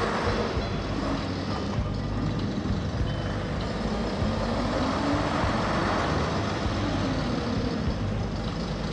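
Engine of a restored pre-war London Transport STL-class double-decker bus, running steadily as the bus drives slowly forward.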